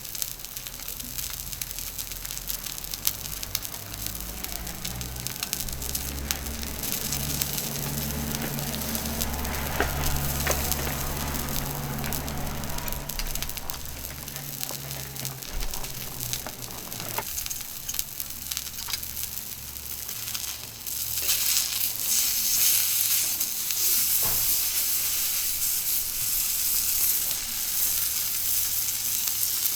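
Wagyu misuji steak sizzling on an unoiled iron griddle over a campfire grill: a steady frying hiss full of small crackling pops. The sizzle grows louder about two-thirds of the way through, and a low rumble sits under it for much of the first half.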